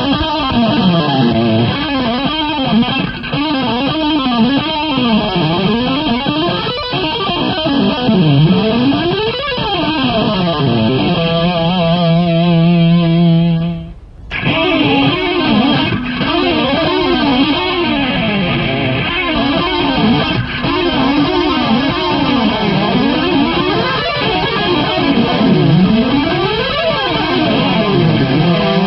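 Electric guitar instrumental: fast runs sweeping up and down in pitch, then a held chord about eleven seconds in. It breaks off briefly near the middle, and the fast up-and-down runs resume until another held chord at the very end.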